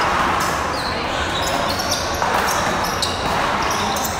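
Small rubber handball being struck and slapping off the wall and floor during a rally on an indoor court, with players' shoes scuffing and squeaking on the floor.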